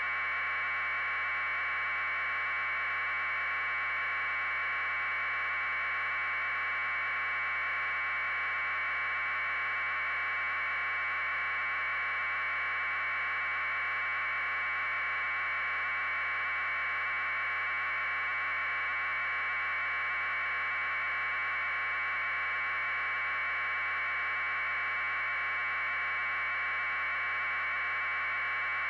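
Steady, unchanging electronic hiss on the audio channel, held in a narrow middle band of pitches, like static on a transmission feed.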